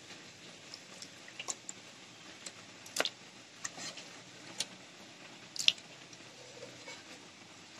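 Raw chicken pieces being mixed in a bowl with a wet, spiced marinade: soft wet squishing with scattered small clicks, two of them louder about three seconds in and near six seconds.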